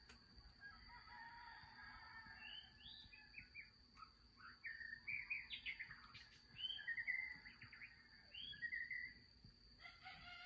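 Small birds singing, a run of short chirps and rising whistles between about three and nine seconds in, over a steady high trill of crickets.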